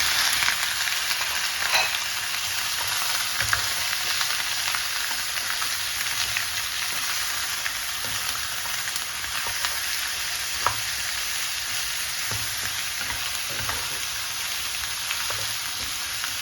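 Bone-in pork pieces frying in hot oil with sautéed garlic and onion: a steady loud sizzle, strongest at the start and easing slightly, with a few sharp clicks.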